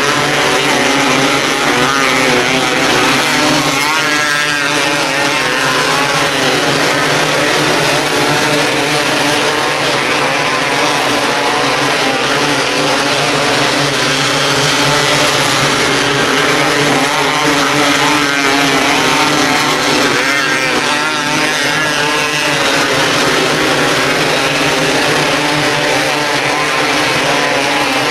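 A pack of 270 micro sprint cars racing on a dirt oval, their single-cylinder motorcycle engines running hard at high revs together, the pitch rising and falling as the cars go around the track.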